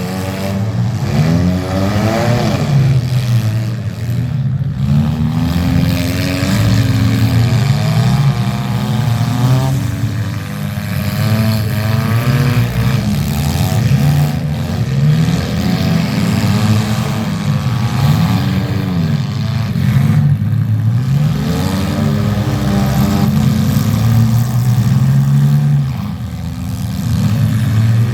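Several demolition derby cars' engines revving, their pitch rising and falling again and again as they accelerate and back off, overlapping one another.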